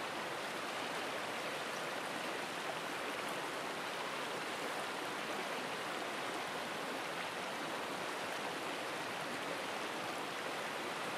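Shallow river running over a gravel bed: a steady rush of flowing water.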